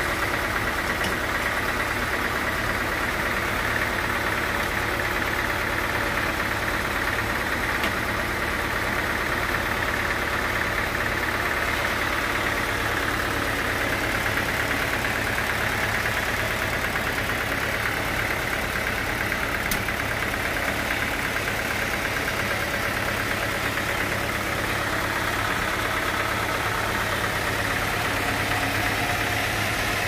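Band sawmill running steadily: a continuous, unchanging machine drone with no pauses or distinct knocks.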